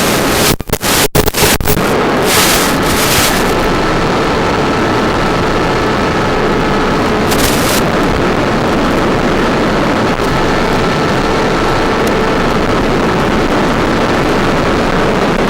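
Strong wind blowing against the microphone: a loud, steady rushing noise, with a few brief dropouts and jolts in the first two seconds and a faint steady tone underneath.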